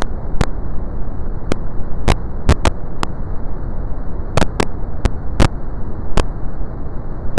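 Brown noise: a steady, deep rushing hiss weighted toward the low end, broken by about a dozen sharp clicks at irregular intervals.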